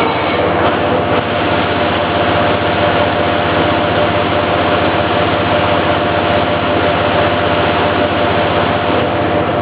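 NUMEN Sigma-9 vertical machining center cutting metal at high speed: a loud, steady machining noise with a steady tone running through it.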